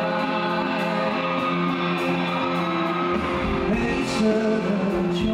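Live rock music: male singing over acoustic and electric guitars, with a deep bass coming in about three seconds in.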